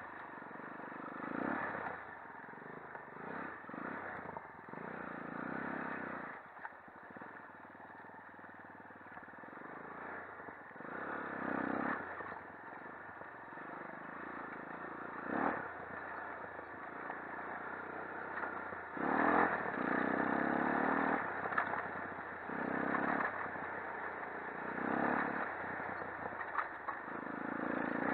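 Shineray 250 quad ATV engine revving up and falling back again and again as it is ridden hard over rough ground. The chassis clatters and knocks over the bumps.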